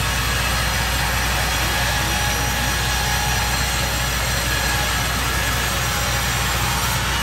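Serra electric band sawmill cutting through a large log, a steady even run of blade and motor noise with no breaks, over the steady hum of engines running.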